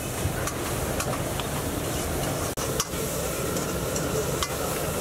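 Long steel ladle stirring Maggi noodles in a large metal pot of simmering masala broth, with occasional clicks of the ladle against the pot over a steady sizzling hiss.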